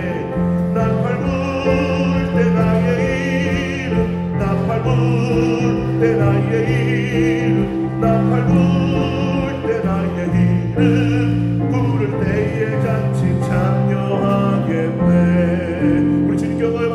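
Worship band playing a gospel praise song: singers with heavy vibrato over electric bass, keyboard and drums, the music easing off near the end.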